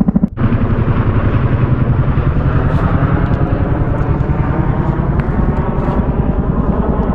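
Helicopter flying overhead, its rotor beating in a fast, steady pulse that is loud throughout, with a short break about a third of a second in.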